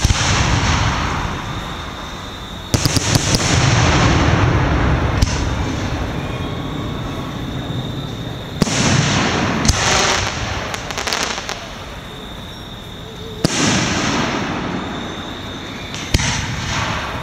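Aerial firework shells bursting one after another, about six sharp bangs each followed by a long rumbling echo, with a quick cluster of crackling reports about three seconds in.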